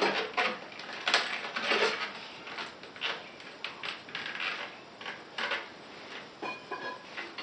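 Metal clanks and clicks from a Harbor Freight manual tire changer as its bead-breaker jaw is set against a motorcycle tire, an irregular run of knocks with a short squeak about six and a half seconds in.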